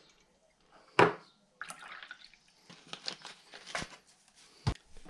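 A sharp knock on the worktop about a second in, then mineral water poured from a bottle into a glass, with a few lighter knocks of glass and bottle being set down near the end.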